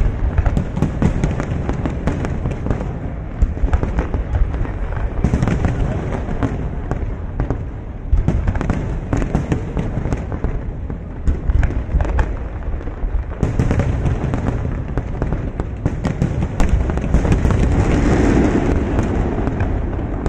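Aerial fireworks shells bursting in a rapid barrage, loud bangs and crackles following close on one another over a continuous low rumble.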